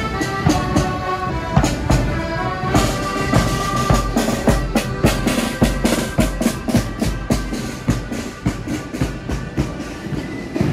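Marching accordion band playing a march, held accordion chords over a beating bass drum and snare. From about four seconds in the drums come to the fore with a quick, steady beat and the chords fade back.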